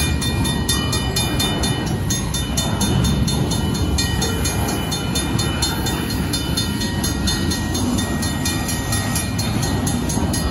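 Union Pacific intermodal train's double-stack container cars rolling past, a steady rumble of wheels on rail. A grade-crossing signal bell rings in quick, evenly repeated strokes over it.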